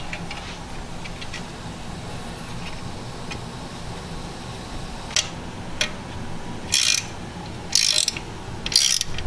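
Small socket ratchet clicking as it tightens the bolts holding a caliper cover onto a brake caliper: a few faint ticks, then three short runs of clicks near the end.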